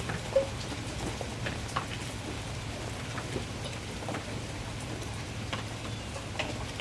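Steady heavy rain falling, with scattered individual drops ticking on a surface and one sharper tap about half a second in.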